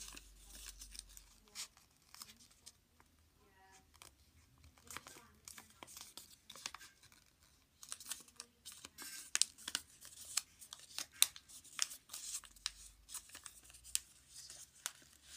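A small sheet of origami paper being folded and creased by hand, crinkling with irregular sharp crackles that come thickest in the second half.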